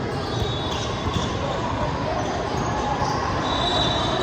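Basketball game in a gym: a ball bouncing on the court over steady crowd noise, with two short high squeaks, one near the start and one near the end.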